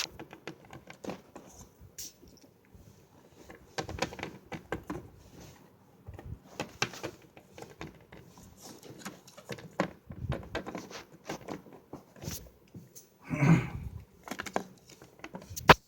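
Small plastic toy figures being handled and set down, making scattered light clicks and taps. A duller knock comes a couple of seconds before the end, and a sharp click right at the end.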